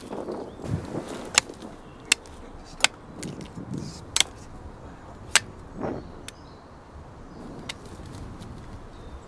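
Billhook chopping into the base of a hedge stem: a series of sharp strikes, about five clear ones spaced roughly a second apart, then lighter ones. Branches rustle before the first strike.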